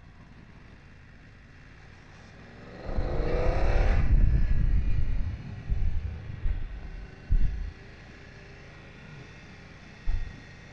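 BMW F900XR parallel-twin motorcycle riding downhill, its engine and wind rush low at first. About three seconds in, the engine note rises and swells with the wind for about two seconds, followed by a few short low thumps of wind buffeting on the microphone.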